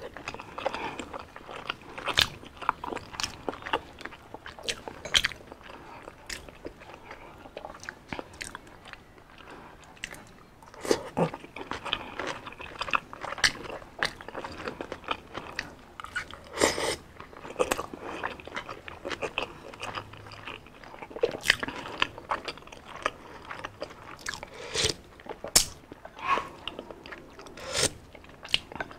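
Close-miked biting and chewing of fried Filipino street food, including orange-battered kwek-kwek, with irregular sharp crunches.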